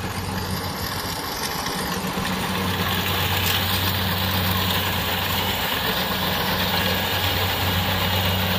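Kubota rice combine harvester's diesel engine running steadily under load while it cuts and threshes rice: a constant low hum under a steady hiss, growing a little louder about two and a half seconds in.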